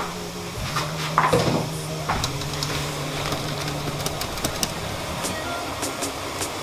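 Wire frying basket clinking and scraping against the pot as boiled boilies are lifted out of the frothing water, with the loudest scrape about a second in. Under it runs a steady hum that stops about five seconds in.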